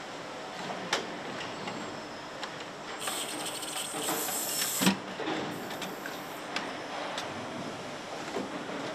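Engine assembly station lowering a cylinder head onto a BMW engine block: steady machine noise with scattered clicks, a burst of air hiss about three seconds in that ends in a clunk, the loudest sound, as the head comes down.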